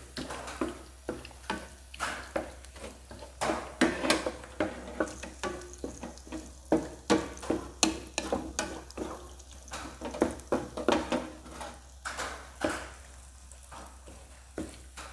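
Wooden spatula scraping and tapping against a nonstick frying pan as egg whites are stirred and scrambled in hot oil, in many short irregular strokes over a light sizzle.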